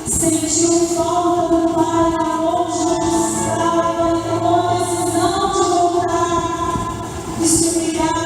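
Church choir singing a Christmas cantata song in long held notes, with sung 's' sounds hissing every couple of seconds.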